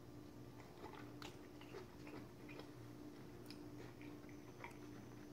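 Faint chewing of a forkful of food: small, scattered mouth clicks over a steady low hum.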